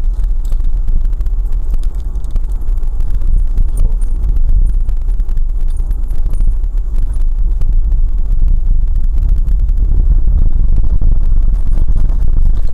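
Car driving on a rough unpaved dirt road, heard from inside the vehicle: a loud, steady low rumble of tyres and engine, with many faint ticks and rattles.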